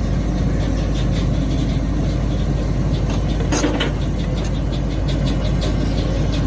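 Cat 320D hydraulic excavator's diesel engine running steadily with a deep rumble, as its screening bucket works the soil. A brief clatter about three and a half seconds in, with lighter knocks and ticks around it.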